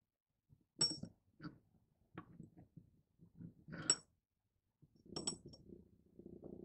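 Fingers handling a miniature sponge cake in a tiny ceramic bowl, with soft knocks and three small, bright clinks of the little dishes. Near the end the cake is set down into a small glass bowl with a soft rustle.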